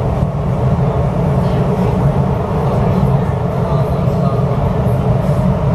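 Bombardier C951 metro train running at speed through a tunnel, heard from inside the front car: a steady, deep rumble of wheels on rail and running gear that holds level throughout.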